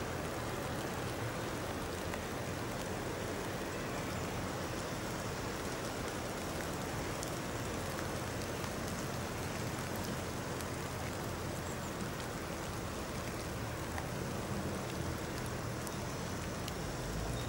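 Steady hiss of rain falling on the trees, with the low drone of a 4x4 SUV's engine as it crawls down a steep slope on its brakes.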